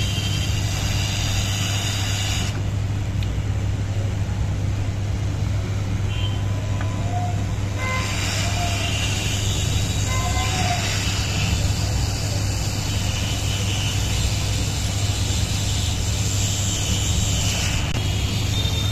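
SMD hot-air rework station blowing steadily, a low hum under an airy hiss, as it reflows solder to fit a tiny surface-mount resistor onto a TV mainboard. The upper hiss dulls for several seconds after about two seconds in, then comes back.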